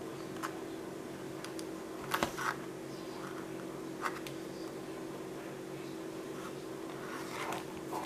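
Hands handling a small cardboard box: a few light taps and knocks, the loudest a quick cluster about two seconds in, then a rustle of paper near the end, over a steady hum.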